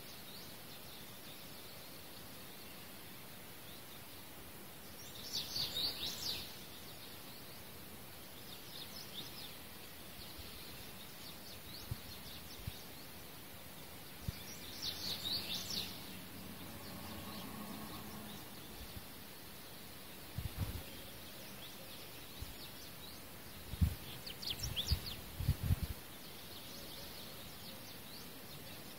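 Steady faint background hiss, broken by three short bursts of high chirping about ten seconds apart and a few soft low knocks near the end.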